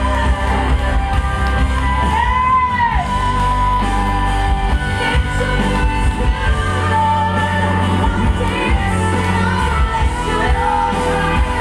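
Praise and worship song played loud: a singer over band accompaniment with a steady bass, with held notes that bend in pitch.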